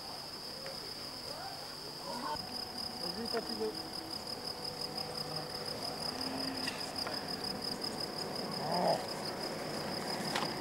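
Crickets chirring: a steady high-pitched trill that turns into rapid, even pulsing about two seconds in.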